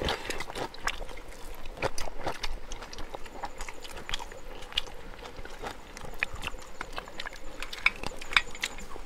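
Several people eating with their hands: chewing and lip-smacking, with irregular small clicks and taps.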